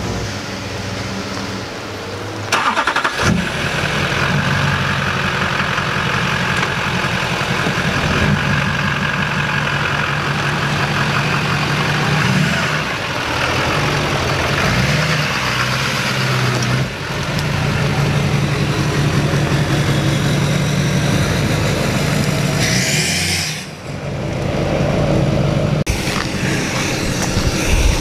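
A lifted pickup truck's engine starts up about two and a half seconds in and then keeps running, its pitch rising and falling a few times. The sound briefly drops away and comes back near the end.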